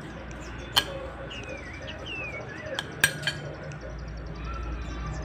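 Metal spoon stirring a coarse coconut sambal in a stone mortar, scraping and giving a few sharp clinks against the stone. Birds chirp in the background.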